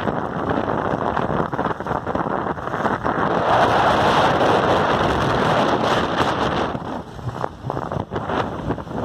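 Wind buffeting the microphone over the road noise of a car driving through town. It grows louder a few seconds in and eases off near the end.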